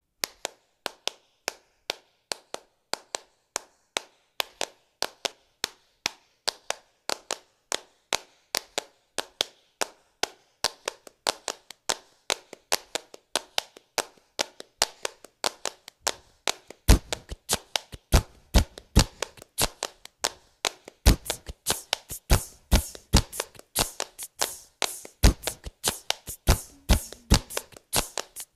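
Hand claps looped on a BOSS RC-50 loop pedal into a steady rhythm of about three claps a second. The pattern grows denser as more clap layers are added, and low thumps join it from about 17 seconds in.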